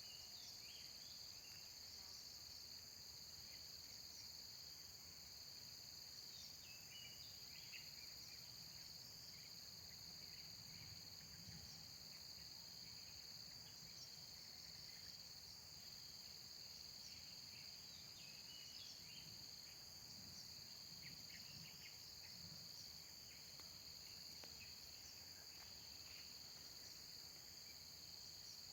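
Faint, steady chorus of insects such as crickets or cicadas, holding several high-pitched tones without a break. Short high chirps come and go through it now and then.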